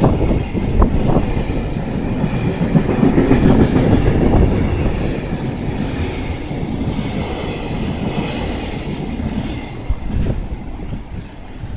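Freight train's wagons running through a station at speed: a steady, loud rumble of wheels on the rails with clickety-clack, easing somewhat near the end.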